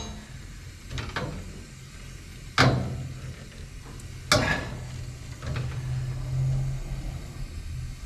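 Metal hand-tool clicks as wire strippers work on a furnace transformer's wiring: two sharp clicks, about two and a half and four seconds in, with a few fainter handling clicks and a low steady hum underneath.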